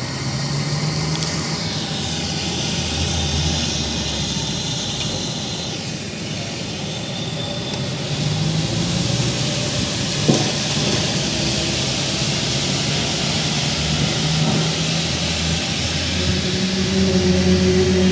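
An unexplained low droning hum over a steady hiss, of the kind reported as a strange sound in the sky. The hum grows louder near the end, with higher tones joining in, and there is a single click about ten seconds in.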